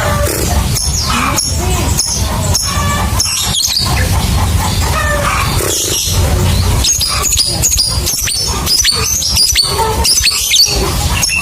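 Lovebird chattering its long 'ngekek' song: rapid, shrill, sharp chirps run together in long strings, over a steady low rumble.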